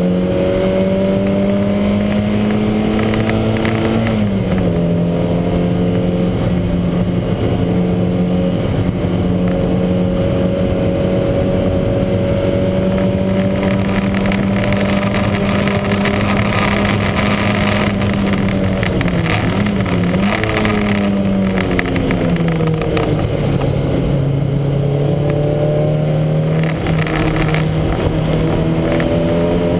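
Lancia Montecarlo's twin-cam four-cylinder engine running hard under race load. Its pitch drops sharply about four seconds in, holds fairly level, wavers and falls to its lowest a little past the middle, then climbs again towards the end.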